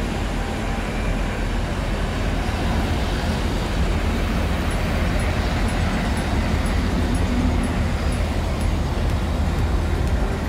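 Polregio EN57-type electric multiple unit pulling in along the platform close by: a steady low rumble of the train's wheels and running gear.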